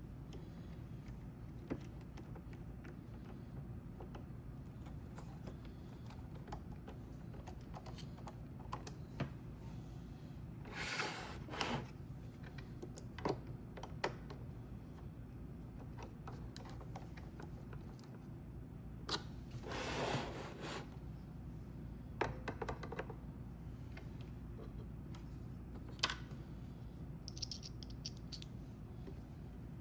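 Faint scattered clicks and taps of plastic parts being handled while the wheel modules are refitted into a Roomba 960 robot vacuum, with two scraping rustles of about a second each.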